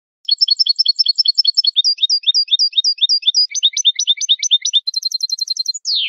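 European goldfinch (jilguero) singing in the Spanish malagueño song style: quick runs of repeated high notes, about six a second, that change pattern twice and end on a falling note that cuts off abruptly.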